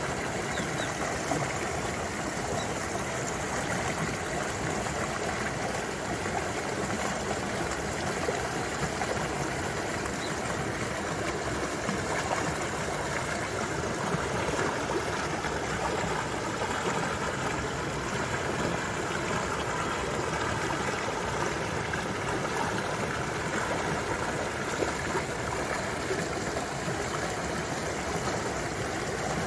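Mountain valley stream flowing steadily, a constant wash of running water.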